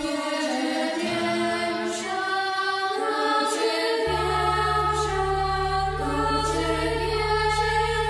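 Soundtrack music: a children's choir singing long held notes in an electronic remix. A steady low bass drone comes in about halfway through, and faint ticks sound about every second and a half.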